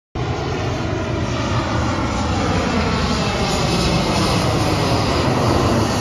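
Jet aircraft flying low overhead: a steady, loud rush of engine noise that grows a little louder toward the end.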